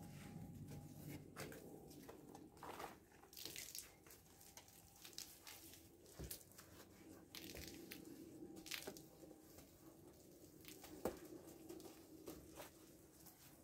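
Faint rubbing and swishing of a soapy sponge scrubbed over a car's paintwork, in short irregular strokes over a low steady hum.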